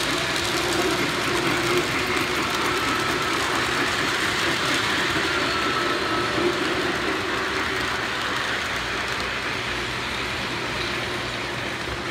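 Polar Express model train, steam locomotive No. 1225 pulling its passenger cars, running steadily along the track: an even rumble of wheels and motor with a faint held hum.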